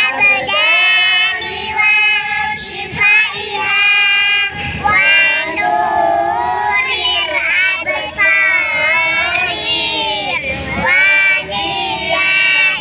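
Young girls singing loudly together close to the microphone, in continuous sung phrases.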